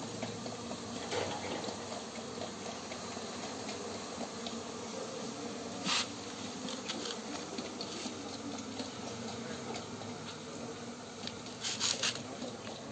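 Honey bees buzzing steadily, with a brief click about six seconds in and a few more clicks near the end.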